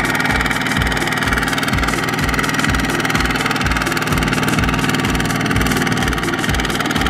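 Kubota RT140 power tiller's single-cylinder diesel engine running steadily with a regular low throb about twice a second, hauling a trailer of rice sacks through mud.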